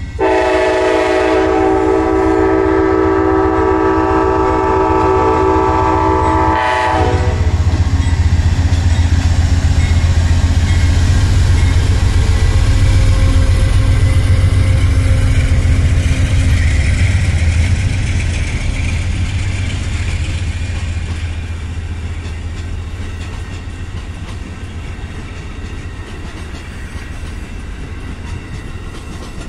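Amtrak GE P42DC diesel locomotive sounds its air horn in one long blast of about seven seconds at the crossing. It then passes close with a loud diesel rumble. The passenger cars follow, their wheels clattering over the rails, and the rumble eases off over the last ten seconds.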